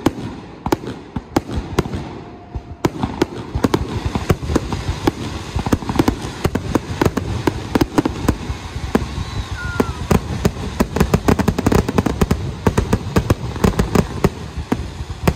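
Fireworks display: aerial shells and low-level comets going off in a rapid, irregular string of bangs and crackles, growing much denser a few seconds in.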